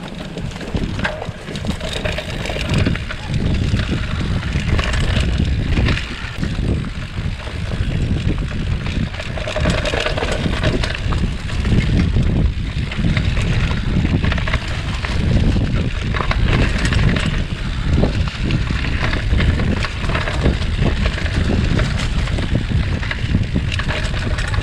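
Mountain bike riding down a rough dirt trail: a steady low rumble of tyres over the ground with scattered rattles and clicks from the bike, and wind buffeting the microphone.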